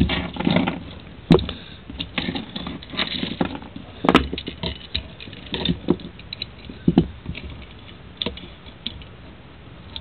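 Rusty iron chain rattling and clinking as it is handled and laid out around an antique iron handcuff, with a few sharper metal knocks, about one, four and seven seconds in.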